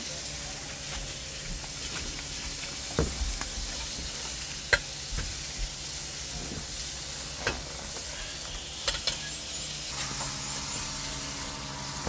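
Food sizzling in a frying pan, a steady hiss, with a few sharp clicks of a cooking utensil against the pan.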